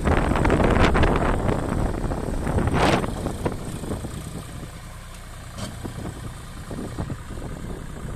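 John Deere tractor's diesel engine running as it pulls a heavily overloaded trolley of jute stalks over rough, rutted ground. The sound is louder and noisier through the first three seconds, then settles to a steadier, quieter run.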